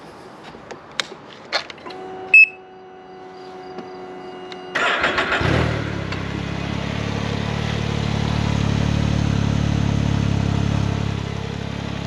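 Can-Am Ryker 900's Rotax three-cylinder engine on its stock exhaust, switched on and started: a few light clicks, a short loud beep, and a steady electric whine for a couple of seconds. About five seconds in it cranks, catches and settles into a steady idle that swells slightly in the middle.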